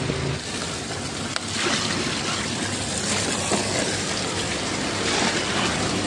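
Water running steadily in a single-tub top-loading washing machine's drum, with a low steady hum underneath.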